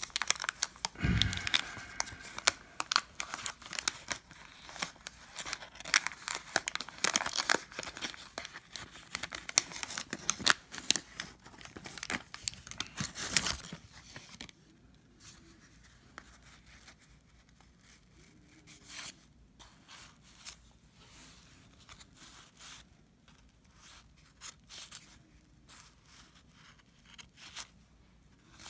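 A 1990 Fleer basketball card pack being torn open, its wax-paper wrapper crackling and crinkling for about the first half. After that, only soft, scattered clicks of the cards being handled.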